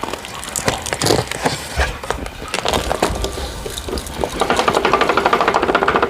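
The dirt bin of a Hoover WindTunnel upright vacuum being emptied: scattered knocks and clatter of the plastic bin as sand, dust and debris fall out, then a fast, continuous rattle in the last second and a half.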